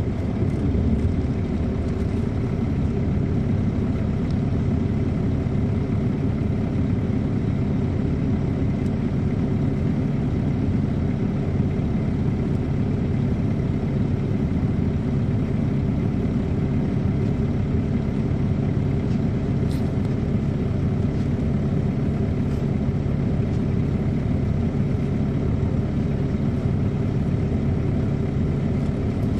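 Cabin sound aboard a 2007 MCI D4500CL coach bus: its Caterpillar C13 ACERT diesel engine running at a steady pitch, an even drone with a low hum and no rise or fall in revs.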